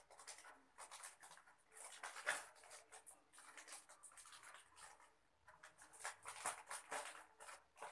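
Faint crinkling and rustling of a plastic courier mailer bag in irregular clusters as it is handled and cut open with scissors.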